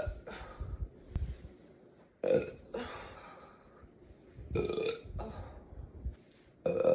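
A woman burping loudly three times, about two seconds apart, each burp lasting under a second.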